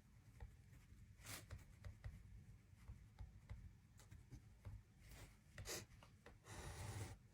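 Faint rustling and scattered clicks from someone eating and handling food in a quiet room, with a slightly louder rustle near the end.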